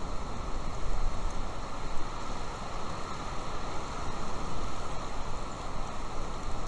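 Steady, noisy outdoor rumble that rises and falls in level, with no clear tones.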